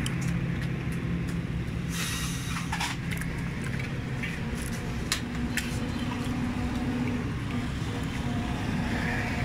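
Steady low hum of engines and street traffic, with a brief hiss about two seconds in and a couple of sharp clinks of steel utensils against a steel bowl.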